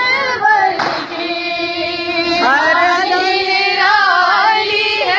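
Women singing a manqabat, an Urdu devotional song in praise of Fatima, in long held and gliding notes.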